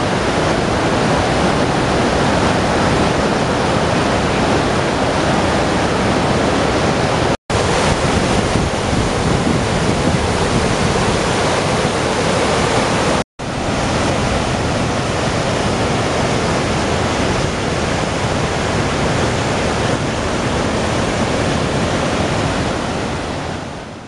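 Waterfall and whitewater rapids rushing steadily over rocks, cut off for an instant about seven and a half seconds in and again about thirteen seconds in, then fading out at the end.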